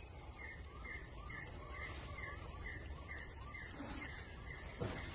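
A bird repeating a short chirping call, about two a second, over steady outdoor background noise, with a single sharp knock near the end.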